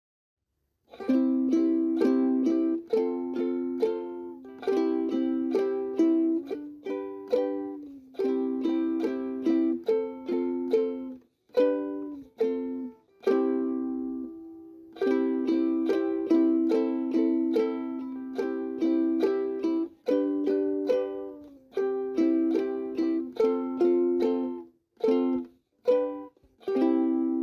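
Background music: a light melody of short notes that ring and fade, in phrases broken by brief pauses.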